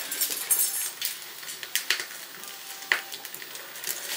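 Open wood fire crackling and sizzling while a freshly killed chicken is held in the flames to singe off its feathers. A few sharper snaps stand out, the loudest about three seconds in.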